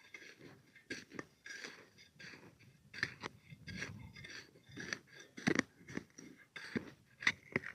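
A string of irregular short crunches and sharp clicks, loudest about five and a half and seven seconds in.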